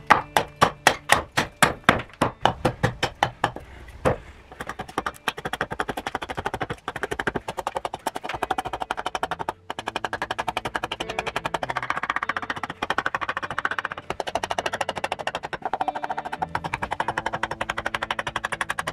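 Hand axe chopping a wooden cup blank on a stump block: sharp strikes about three a second for the first few seconds, then a fast run of lighter taps as the blade is choked up for fine shaping. Background music with guitar plays underneath.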